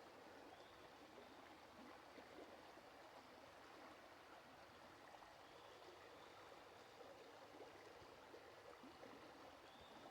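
Faint, steady rush of flowing stream water.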